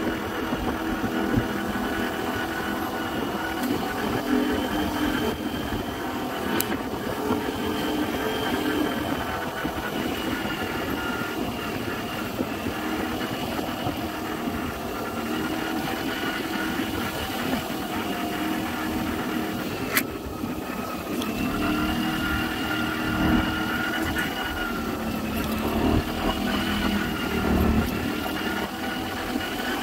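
Aprilia SR GT scooter's single-cylinder engine running steadily while riding, its pitch rising and falling a little with the throttle, over a haze of wind and road noise.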